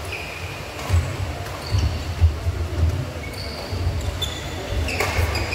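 Badminton players' shoes squeaking in short chirps and feet thudding on the court floor during a rally, with a sharp hit about five seconds in.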